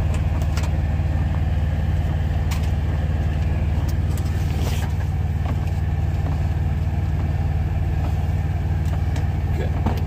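Truck's diesel engine idling steadily, a low, even drone heard from inside the cab. A few light clicks and knocks come over it as things are handled.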